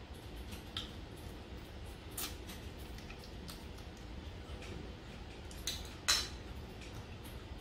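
Chopsticks clicking and scraping against a stainless steel bowl while picking up food, with chewing between. The sharpest click comes about six seconds in.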